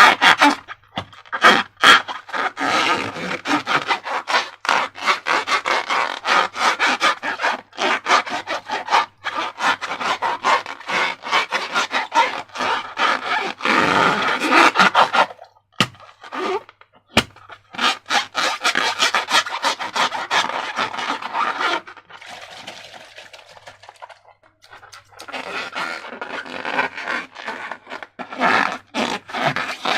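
Slime being worked by hand, a dense run of sticky crackling and squelching made up of many quick small clicks. Two sharp clicks come a little past the middle, and the sound goes quieter for a few seconds about three quarters through.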